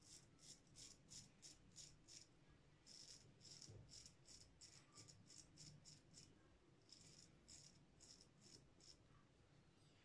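Straight razor scraping through lathered beard stubble: faint, crisp rasps about four a second, in runs broken by brief pauses.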